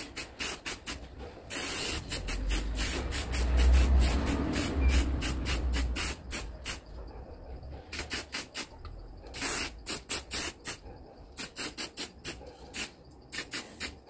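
Aerosol can of chrome spray paint hissing in many short bursts, with one longer spray of a few seconds about two seconds in, then quick, rapid-fire bursts again toward the end.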